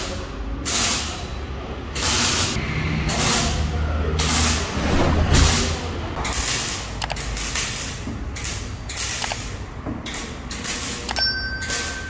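Arc welder crackling in a series of short bursts, each about half a second to a second long, as a stainless-steel exhaust tip is welded onto a car's tailpipe. Near the end, a click and a short chime.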